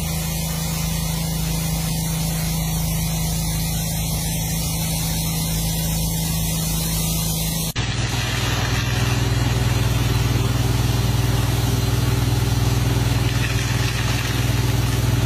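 Pressure washers running: a steady motor hum under the hiss of high-pressure water spray. About eight seconds in it cuts abruptly to a second pressure washer with a lower, louder hum as the jet is driven through a pipe.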